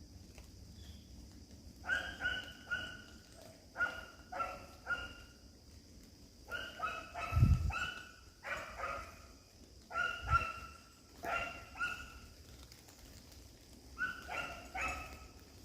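A pup barking in quick runs of two to four short, high barks, again and again. Two low thumps come in among the barks, a loud one about halfway through and a smaller one a few seconds later.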